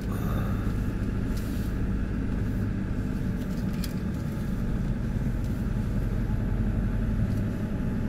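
Four-wheel-drive truck's engine running steadily at low road speed, heard from inside the cab as an even low drone. A few faint clicks or rattles sound over it.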